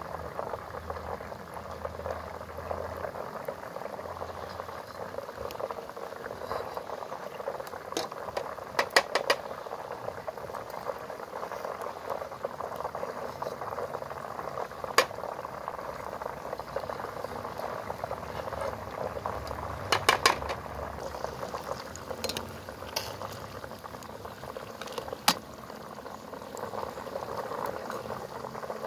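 Whole stuffed chicken frying in hot oil in a pot: a steady sizzle and bubbling of the oil, with sharp pops now and then, clustered about a third of the way in and again around two-thirds in.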